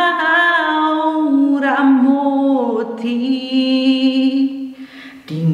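A woman singing a Batak song unaccompanied, holding long, slowly gliding notes, with a brief breath pause near the end.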